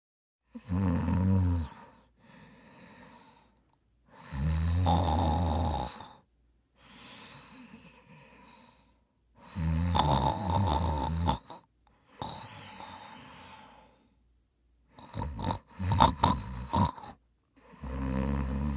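A person snoring loudly: deep, rough snores come every four to five seconds, each followed by a quieter breath. Near the end comes a run of short, choppy snorts, then another full snore.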